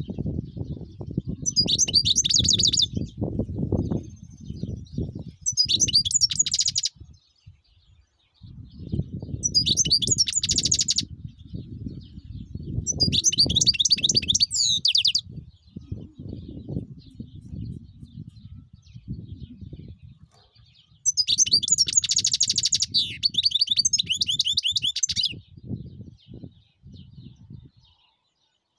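European goldfinch singing in five bursts of rapid, high twittering, each one to four seconds long. A low rumble comes and goes underneath.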